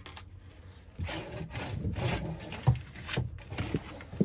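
Hand-handling noise in the wooden under-bed compartment: irregular rubbing and scraping, with a sharp knock about two and a half seconds in and another near the end.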